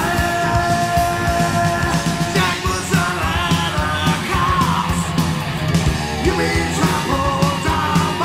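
Thrash/speed metal song: distorted electric guitars, bass and drums, with a held high note near the start and then lines that bend in pitch.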